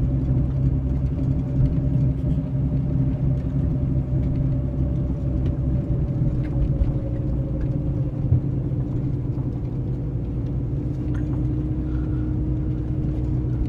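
Old Jeep's engine running steadily at low speed, heard from inside the cab as it creeps along a muddy dirt trail, its note dropping slightly about halfway through, with a few light knocks.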